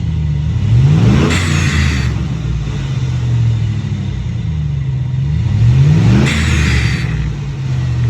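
Engine revved twice, about five seconds apart, from a steady idle. Each time the revs fall, an electronic turbo simulator gives a short hissing whoosh with a falling whistle, imitating a turbo blow-off.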